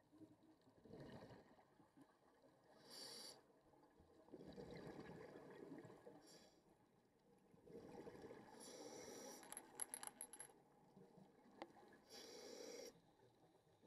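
Faint scuba breathing through a regulator underwater: short hissing breaths and bubbling exhalations, repeating every few seconds.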